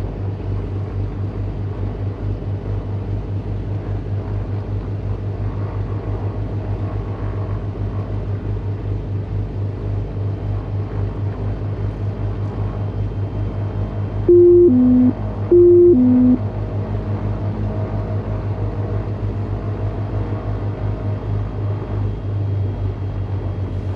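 Beechcraft G58 Baron's twin Continental IO-550 engines idling slowly after a cold start, a steady low pulsing. About 14 seconds in, a loud two-note electronic avionics tone, high then low, sounds twice as the avionics power up.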